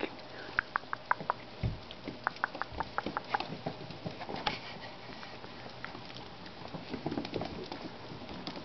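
Shichon puppy's claws pattering and clicking on a tile floor as it scrambles about during rough play. There is a quick run of light clicks in the first few seconds, then scattered ones.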